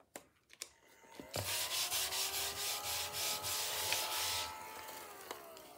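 Small battery-powered desk vacuum switched on about a second in, running with a steady whine and hiss as it is moved over the mat picking up scratch-card scrapings. Near the end it is switched off and its motor winds down, the whine falling in pitch.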